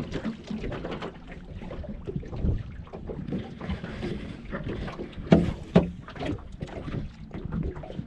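Wind buffeting the microphone in a small boat on the water, an uneven low rumble. Two sharp knocks sound close together a little over five seconds in.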